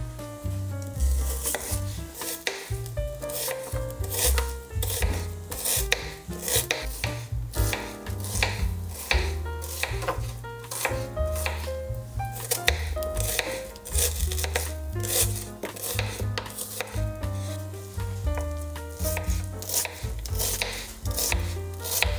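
Kitchen knife dicing a red onion on a wooden cutting board: quick, repeated strikes of the blade through the onion onto the board, over background music.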